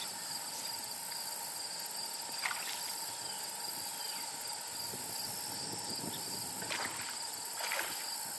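Meadow insects chirring in the grass: a steady high buzzing that comes in long runs of rapid pulses, with a few thinner steady tones beneath it.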